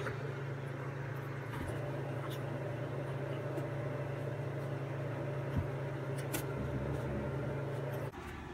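A steady low mechanical hum with a few faint clicks and taps over it. The hum cuts off abruptly near the end.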